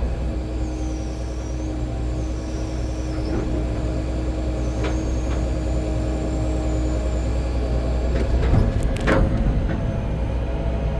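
John Deere 350D LC excavator's 9.0L six-cylinder PowerTech turbo diesel running steadily, with a faint high wavering whine over it and a couple of sharp knocks or clanks near the end.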